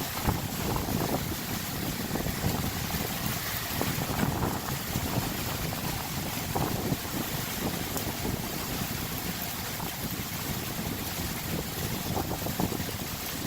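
Heavy thunderstorm rain pouring steadily, a dense even hiss of falling and running water.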